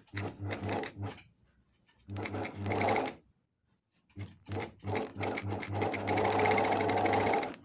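12-needle industrial sewing machine running in short spurts, stitching a test piece of fabric. After a few brief starts and a one-second run, it runs steadily for about three seconds near the end, a fast even stitching rhythm over a low motor hum.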